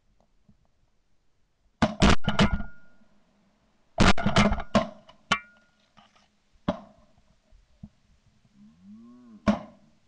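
Shotguns firing at ducks passing overhead: a rapid string of about four shots some two seconds in, another rapid string about four seconds in, then single shots near seven and nine and a half seconds. Short low quacking calls sound just before the last shot.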